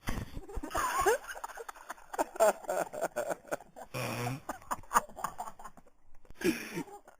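Stifled laughter: snickers and wheezy giggles held back under the breath. Two short, low, buzzing sounds come through about four seconds in and near the end.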